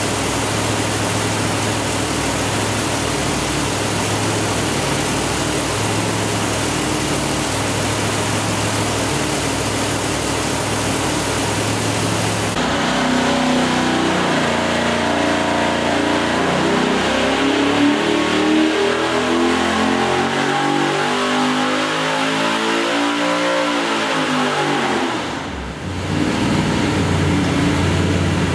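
427-cubic-inch LS V8 on an engine dyno, running at a steady idle. After a cut it makes a dyno pull: the engine note climbs steadily in pitch for about ten seconds, then drops off suddenly as the throttle closes, and the engine settles back to idle.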